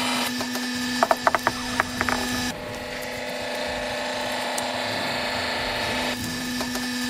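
Homemade double-acting log splitter running and splitting birch logs, with a steady hum and a quick series of sharp mechanical clacks and wood cracks about one to two seconds in. The hum drops out about two and a half seconds in and returns near the end.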